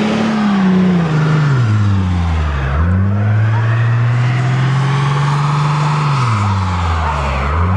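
Old Ford car's engine revved hard against the brakes for a burnout, the rear tyre spinning in place. The revs sag and climb back twice and hold high in between.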